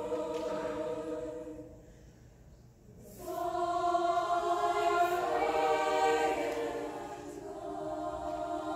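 Show choir singing held chords in harmony. The chord dies away about a second and a half in, and after a short pause the voices come back in together at full strength and hold on.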